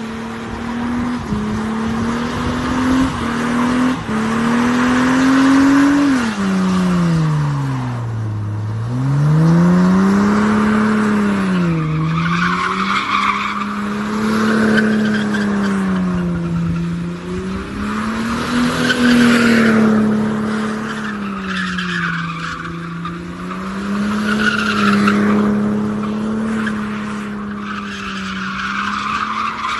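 Sedan engine held at high revs while the car does donuts, its driven tyres spinning and skidding. The revs sag deeply about eight seconds in, climb back, and then keep rising and falling with the wheelspin.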